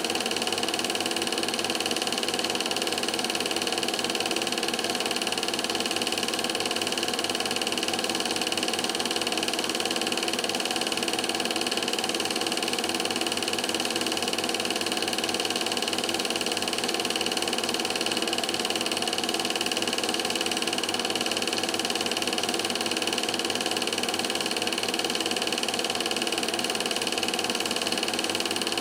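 Steady mechanical whir of a film projector running, a constant hum with a few fixed tones over hiss that never changes.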